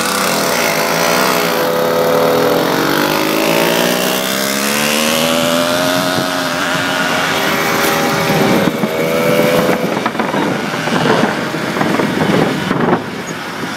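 Small motorized-bicycle kit engine running while riding, its pitch rising and falling with the throttle. In the later seconds it turns rougher and noisier.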